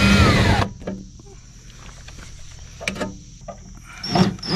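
Cordless drill/driver running on a screw of the RV water heater compartment for about half a second, then stopping. A couple of light clicks follow. Near the end the drill is triggered again and starts to spin up.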